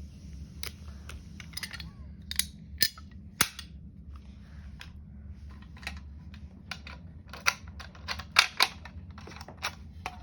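Fire alarm pull stations being worked by hand: an irregular string of sharp mechanical clacks and snaps as handles and reset mechanisms are moved, loudest in clusters about a quarter of the way in and again near the end.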